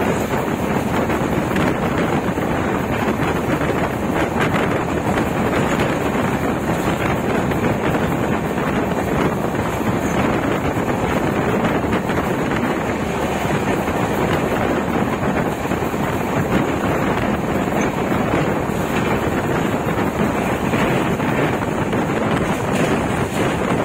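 Wind rushing over the microphone aboard a passenger train running at speed, a loud, steady roar with no clear wheel rhythm.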